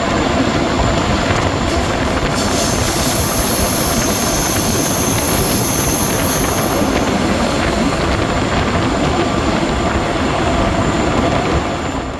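Passenger train hauled by class 204 (ex-DR V100) diesel-hydraulic locomotives running past, a loud, steady mix of engine rumble and wheel-on-rail noise. A high-pitched tone rides over it for a few seconds in the middle.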